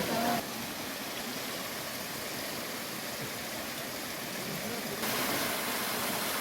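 Mountain valley stream rushing over rocks, a steady rush of water. It drops in level just under half a second in and gets louder again about five seconds in.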